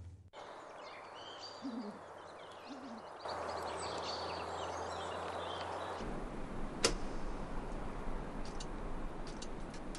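Quiet outdoor ambience with scattered bird chirps and two short, low hoot-like calls in the first few seconds. It gives way to a steady background hiss that grows a little louder, with one sharp click about seven seconds in.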